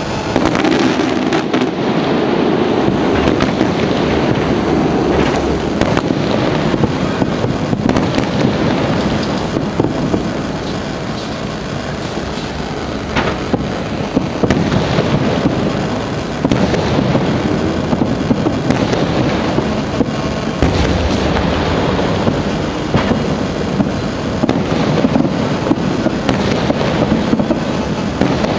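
Aerial fireworks display: a dense, continuous crackle and rattle of shells bursting, with a few heavier bangs standing out.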